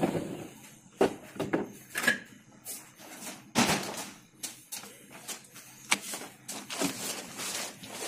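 Sliding sash of an aluminium double-glazed window being lifted out of its track: a string of irregular knocks, clunks and scrapes of the frame.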